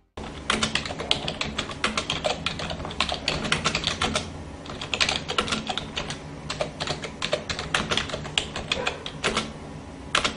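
Computer keyboard typing sound effect: rapid, irregular key clicks keeping time with text being typed onto the screen, over a low steady hum.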